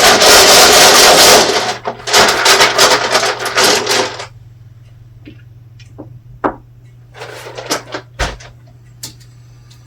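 A deck of tarot cards being shuffled in two bursts of dense rustling, then a few light taps and slides as single cards are drawn and laid down.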